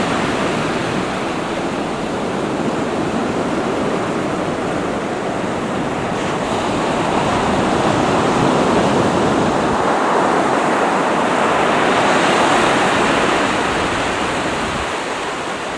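Ocean surf breaking and washing up a beach: a steady rush of water that swells louder around the middle and eases off near the end.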